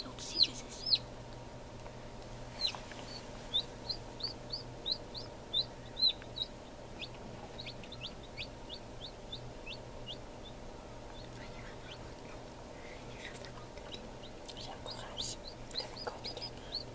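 Newly hatched domestic chick peeping: a run of short, high chirps that slide downward, about two a second, then a few more near the end, over a steady low hum.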